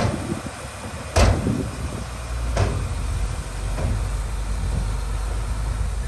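Heavy diesel earthmoving machinery running with a steady low rumble, broken by four sharp knocks about a second and a quarter apart; the second knock is the loudest.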